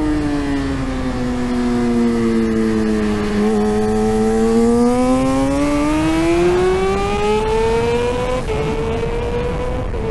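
2017 Yamaha R6's inline-four engine on track: revs falling as it slows for a corner, a short blip about three and a half seconds in, then a long steady climb in revs under acceleration, broken by quick gear changes after about eight seconds and again near the end.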